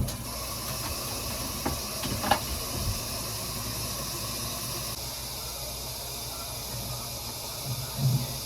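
Water running steadily, with a couple of light knocks about two seconds in and a dull thump near the end.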